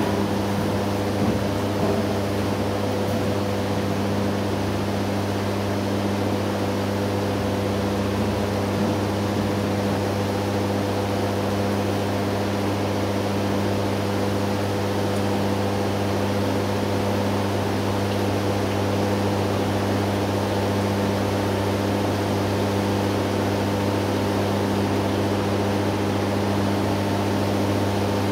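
Small water pump running steadily, feeding couplant water through a tube onto the test part: a constant low electrical hum with a hiss.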